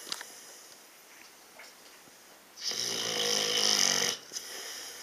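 Snoring: one loud snore about a second and a half long, midway through, a low pitched drone with rasp on top, between quieter stretches.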